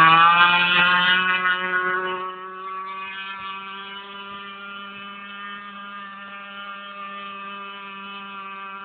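Radio-controlled boat's motor running with a steady, even-pitched whine. It is loud at first and drops to a lower, steady level about two seconds in.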